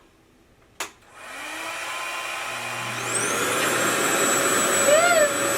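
RevAir reverse-air hair dryer switched on with a click about a second in. Its suction motor then spins up, the noise building steadily with a whine that rises in pitch and settles into a steady high tone as it reaches full speed.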